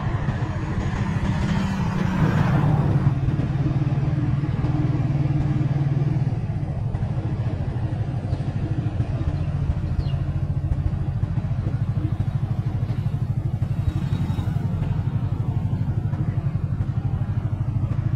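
Motorcycle engine running steadily at low road speed, heard close up, a little louder for a moment about two seconds in.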